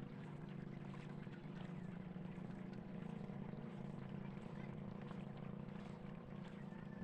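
A small wooden boat being paddled with a single wooden paddle, with faint water splashes from the strokes, over a steady low hum.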